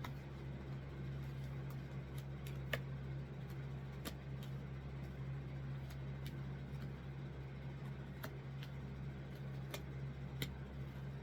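Tarot cards being laid out on a table: a scattering of light clicks and taps, irregularly spaced, over a steady low hum.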